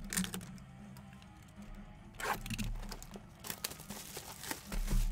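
Clear plastic shrink wrap crinkling and crackling as it is torn off a box of baseball cards, with a denser crinkle about two seconds in and a low thump near the end as the box is set down. Background music plays throughout.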